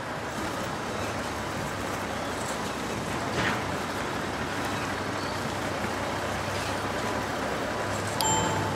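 Steady machinery noise of a waste-sorting line running, an even rumble with a faint low hum. Near the end a chiming music note comes in.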